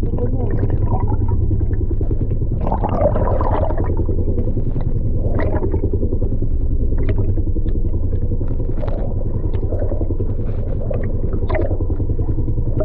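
Boat engine heard underwater as a steady low rumble with a fast even pulse, with scattered clicks and crackles throughout.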